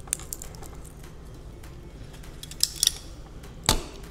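Small hand tools clicking and scraping on metal parts while a levitating lightbulb's base is pried apart: scattered light clicks, a quick run of sharper clicks past the middle and one louder knock near the end.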